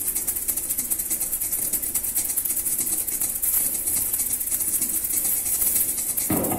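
A pair of maracas shaken in a rapid, even rhythm, a dense rattle of beads. Near the end, a louder sound from another instrument comes in.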